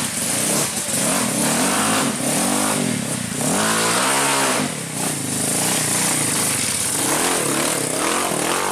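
Trail motorcycle engines revving, the pitch rising and falling over and over, with one strong rev about four seconds in.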